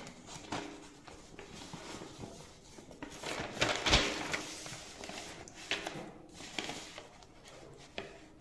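Sheets of paper being moved and rustled, with scattered light taps and a louder bump about four seconds in.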